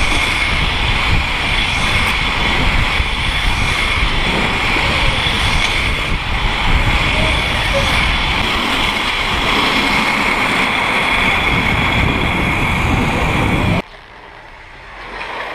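Inline skate wheels rolling fast on asphalt with wind rushing over the microphone: a steady loud rush with a high whine held at two pitches. It cuts off suddenly near the end, leaving much quieter street sound.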